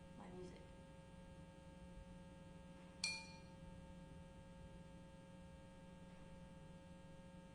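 A single clay flowerpot struck once with a stick about three seconds in, giving a bright ringing tone that fades quickly, over a faint steady hum.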